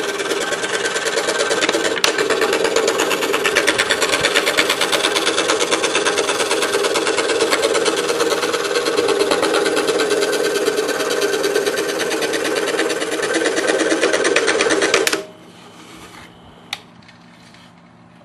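DeWalt scroll saw cutting through a wooden board, its blade stroking up and down in a fast, even buzz. The sound stops abruptly about fifteen seconds in, followed by a faint click.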